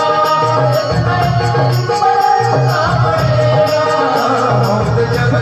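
Instrumental song interlude: a melody line over a steady, regular beat and bass.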